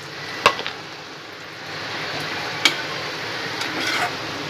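Potato bhajis sizzling as they fry in hot oil in a kadhai. A metal slotted spoon clinks sharply against the pan and plate about half a second in and again near three seconds, as the fried bhajis are lifted out.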